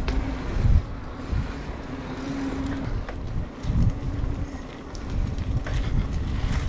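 Wind rushing over the microphone of a moving mountain bike, with gusty low thumps, over the rolling noise of knobby tyres on a paved path and then a dirt track.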